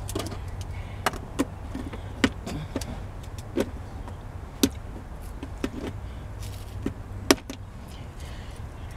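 Scattered sharp clicks and knocks, about a dozen in nine seconds with the loudest near the end, as hands work at the plastic dashboard and console inside a pickup truck's cab, over a steady low hum.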